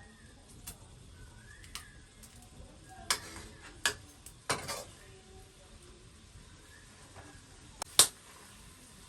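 Cooking utensils knocking and clinking against pots and dishes: about six sharp separate knocks at uneven spacing, the loudest near the end.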